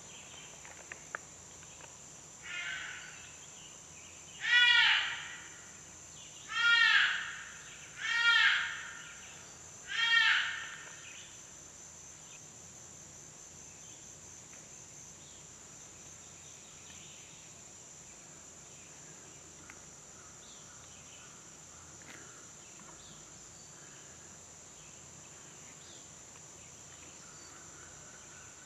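Electronic predator call playing a whitetail fawn distress sound: five drawn-out bleats, each about a second long and rising then falling in pitch, the first faint and the other four loud, all within the first ten seconds. A steady high drone of insects runs underneath.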